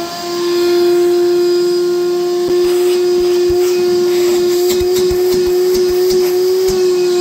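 Hercules shop vac running at full speed: a steady, high-pitched motor whine over the rush of air.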